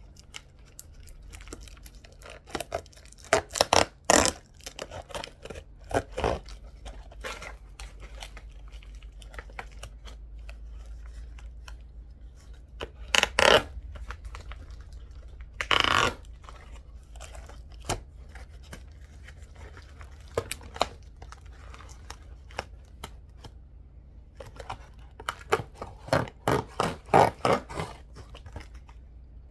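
Shipping packaging being torn open and handled by hand, with irregular tearing and rustling and a few louder rips.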